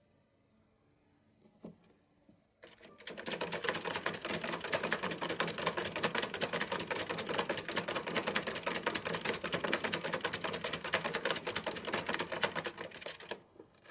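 Exercise wheel spun by a running Richardson's ground squirrel, giving a loud, rapid, even clatter of ticks. It starts suddenly about three seconds in and cuts off shortly before the end.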